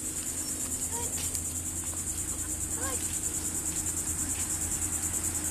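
Crickets chirring in a steady, high-pitched pulsing chorus, over a faint low hum.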